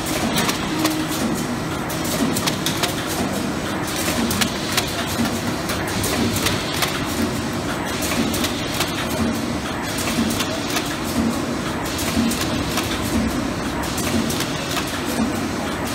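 Wipes packaging machine with a roll-fed label applicator running: a steady mechanical hum that pulses with a regular cycling beat, with constant light clicking and clatter from the moving parts.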